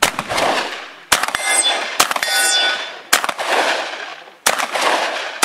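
Shotgun fired in a quick string, about five shots roughly a second apart, each with a long echo off the range berms. After the second and third shots a steel target rings.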